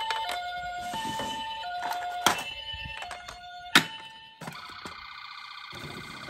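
Toy ambulance's electronic two-tone siren, switching between a high and a low pitch about every 0.7 s, in the Japanese hi-lo pattern. Two sharp knocks come as the toys are handled and set down, the louder one about four seconds in. After that a different wavering electronic tone starts.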